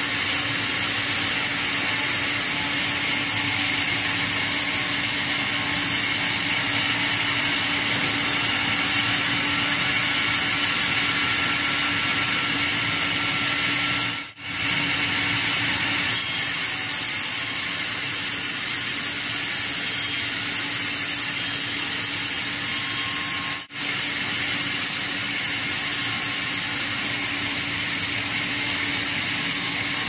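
Large sawmill band saw cutting through a sugi (Japanese cedar) log. A loud, steady noise of the blade in the wood, with a low hum under it; it drops out briefly twice, about halfway through and again later.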